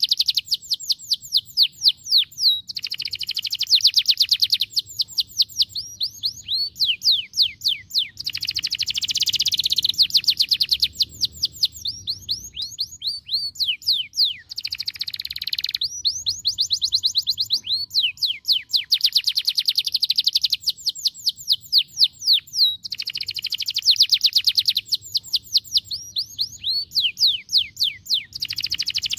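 Domestic canary singing a long song made of fast rolls of quick, repeated down-slurred whistles and dense trills, changing phrase every few seconds with brief pauses.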